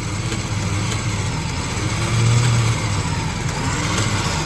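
Motor vehicle engine running steadily, swelling briefly about two seconds in.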